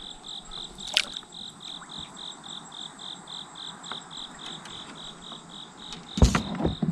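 An insect chirping in a steady high pulse, about four chirps a second. A sharp click comes about a second in, and a louder thump near the end.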